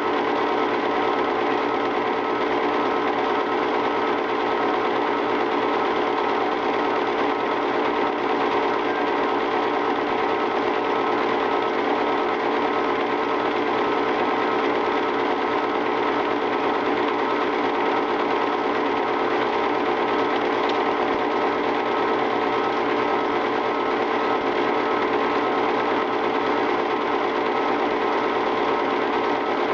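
Home-movie film projector running steadily, its motor and film transport making an even mechanical whirr.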